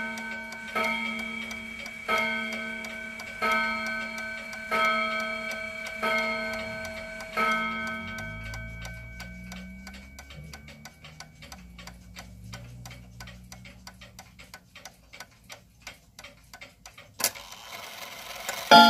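A 31-day tambour mantel clock's Chinese-made 0304 movement strikes on its steel gong rods: six ringing hammer blows about 1.3 seconds apart, each fading into the next. After the last strike dies away, the pendulum movement ticks steadily. Near the end there is a sharp click and another strike rings out.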